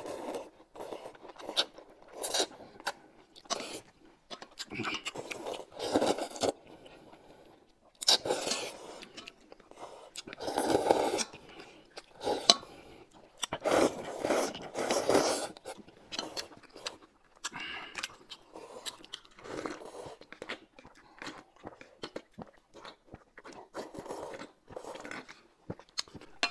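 Two people slurping noodles, with loud slurps coming in repeated bursts, some about a second long, and chewing in the quieter stretches between.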